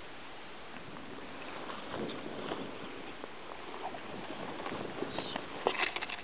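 Wind blowing on the microphone with footsteps and rustling in long grass. A cluster of rustles and light knocks comes about five and a half seconds in.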